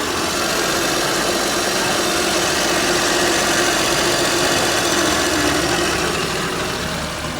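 Suzuki Mehran's three-cylinder petrol engine idling steadily just after starting, with a steady whine-like tone running over the engine noise.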